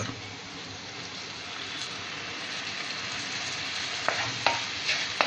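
Onion-tomato masala gravy sizzling in a hot non-stick frying pan as a dash of water goes in, the sizzle growing a little louder. From about four seconds in, a spatula scrapes and taps through the gravy a few times.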